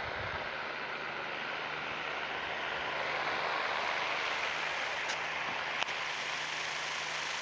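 Steady rushing noise with a faint low hum under it, and two light clicks about five and six seconds in.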